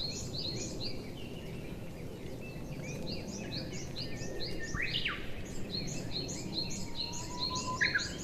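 Songbirds chirping in quick runs of high, repeated notes, several a second, with a few lower falling notes mixed in, over a steady low background rumble.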